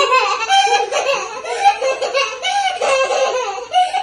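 A toddler girl laughing hard, a quick run of high-pitched giggles one after another, as she is lifted up and played with.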